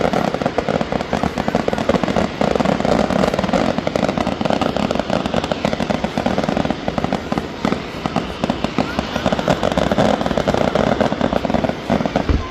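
Fireworks display going off in a dense, continuous barrage of rapid crackles and pops, falling away just before the end.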